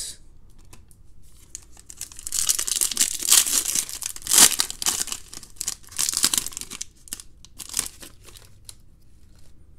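A trading-card pack wrapper being torn open and crinkled by hand: a run of crackling tears over a few seconds, loudest about four seconds in, followed by a few lighter crinkles.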